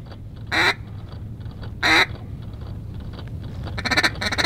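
Loud, raspy mallard hen quacks: one about half a second in, another about two seconds in, then a quick run of several quacks near the end.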